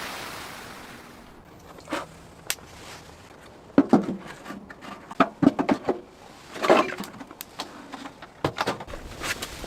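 Scattered light knocks and clicks at irregular moments, with a few short rustles, over a faint background.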